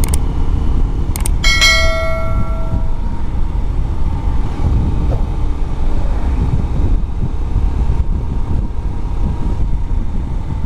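Bajaj Pulsar 125's single-cylinder engine running at cruising speed in fifth gear, buried under heavy wind buffeting on the microphone. About a second and a half in, two sharp clicks are followed by a bell-like metallic ring that dies away within about a second and a half.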